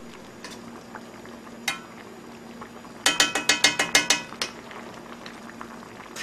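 A metal spoon stirring kimchi jjigae in a metal pan and clinking against it: one clink early, then a quick run of about nine ringing clinks a little past halfway.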